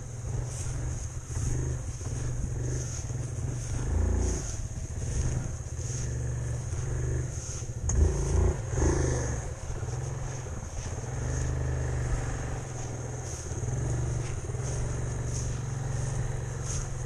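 Side-by-side off-road vehicle's engine running steadily at low speed as it creeps through grass, briefly louder about four and eight seconds in.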